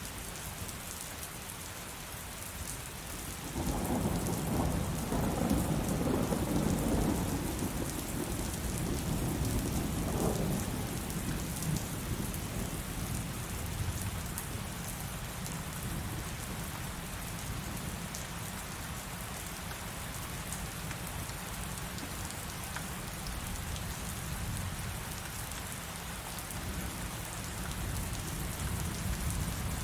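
Heavy rain falling steadily, with a long roll of thunder rumbling in about three seconds in, swelling a second time, then fading away under the rain.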